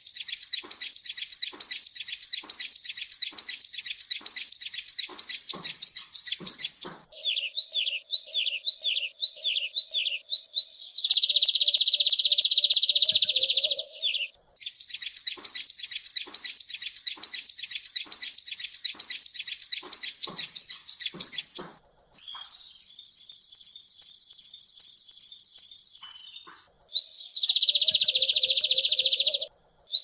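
Sunbird song, high-pitched and changing phrase by phrase: fast twittering trills, a run of repeated down-slurred notes, and stretches of dense, buzzy high-pitched song. A thin high whistle over chatter comes in past the middle.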